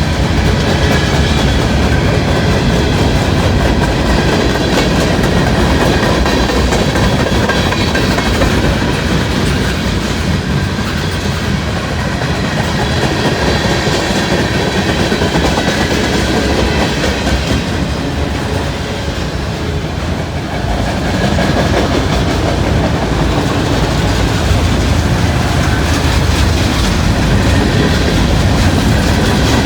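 Freight cars of a long mixed-manifest train rolling past steadily, wheels clacking over the rail joints, with a faint high steel-wheel squeal.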